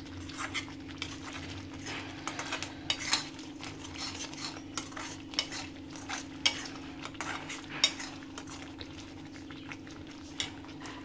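A metal spatula scrapes and clicks irregularly against a steel kadai as thick masala paste is stirred and sautéed, with a few sharper knocks along the way. A steady low hum runs underneath.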